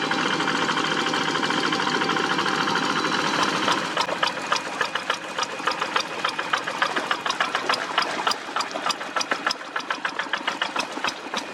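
Single-cylinder diesel engine of a walk-behind rice-field tractor running steadily, then about four seconds in dropping to a slower clattering beat of separate knocks, several a second, as it throttles back toward idle.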